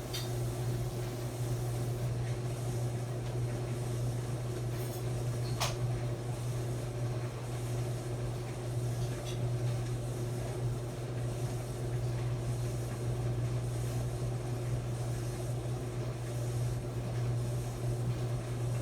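Maytag clothes dryer running: a steady low hum with a faint steady tone above it, and a single light click about six seconds in.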